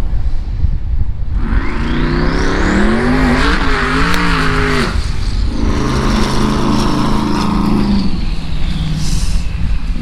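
Twin-turbo Dodge Demon's V8 revving hard on a launch with a rising turbo whistle, its revs surging up and down as the tyres spin on the slick unprepped track. It backs off about five seconds in and runs steadier until about eight seconds.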